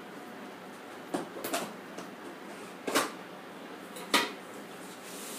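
Scissors cutting the clear packing tape along the seam of a cardboard laptop box: a handful of short, sharp snips, the loudest about three and four seconds in.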